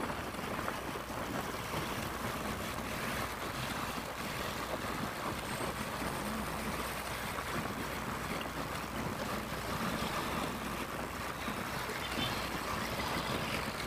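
Steady rush of wind and road noise from a vehicle moving along a road, with wind buffeting the microphone.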